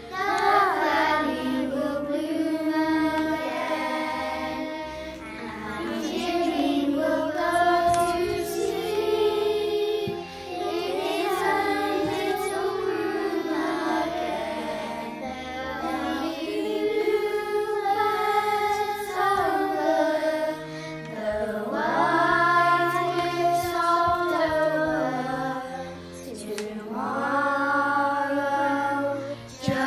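Children's choir singing a slow song in unison, in long sung phrases with short breaks between them.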